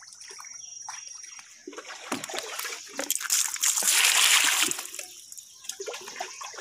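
Water splashing and trickling as a woven bamboo fishing basket with fish in it is handled in shallow pond water, water running off the basket. The splashing starts after a couple of seconds and is loudest near the middle.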